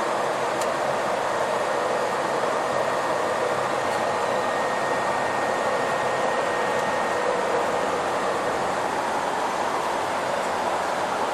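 Steady cabin noise of a bus travelling at freeway speed: an even rush of road, engine and air noise with no breaks, and a faint high whine for a few seconds in the middle.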